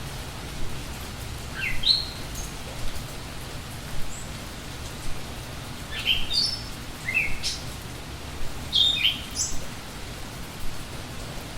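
Steady rain falling, with a songbird singing short rising chirps in three bouts, about two, six and nine seconds in.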